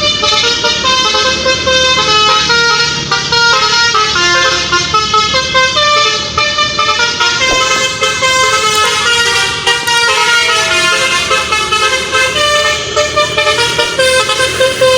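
Tour bus's telolet basuri musical horn playing a melody: a loud, unbroken run of horn notes stepping up and down in pitch.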